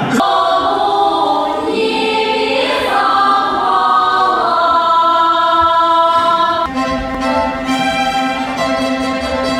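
A choir singing classical music with an orchestra's bowed strings, holding long sustained notes.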